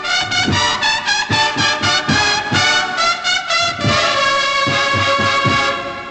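Brass band playing a slow procession march: trumpets and trombones in changing melodic notes over regular drum beats, fading out near the end.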